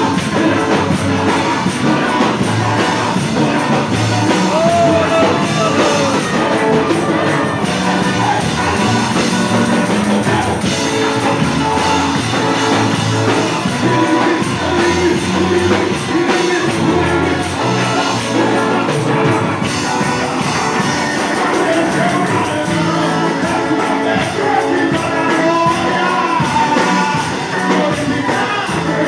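Loud live gospel worship music: a singer leading praise over a band, with no break.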